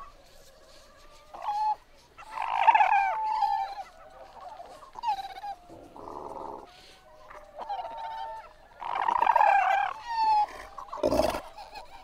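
Kerguelen (Antarctic) fur seals calling close up in a colony: several overlapping, wavering pitched cries, loudest about two to three seconds in and again around nine seconds. There is a short breathy call near six seconds and a brief, rough, deep burst about eleven seconds in.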